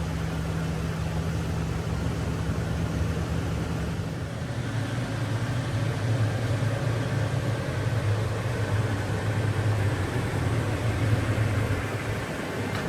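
Vehicle engine running steadily with road noise, its low note shifting lower about four seconds in.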